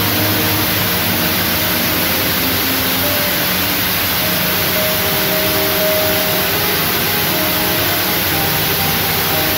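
Steady, loud sizzling hiss of a sandwich toasting in a cast-iron pan, with faint background music underneath.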